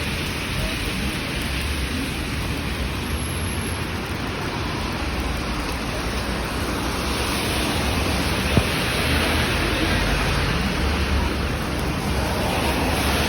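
Steady summer rain falling, an even hiss, with one sharp click about two-thirds of the way through.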